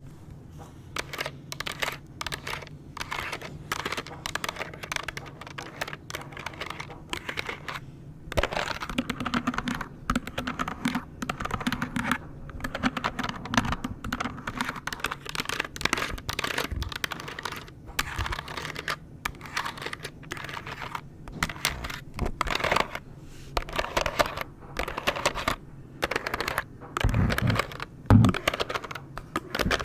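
Long nails tapping and pressing the keys of a calculator, a quick irregular run of clicks with short pauses.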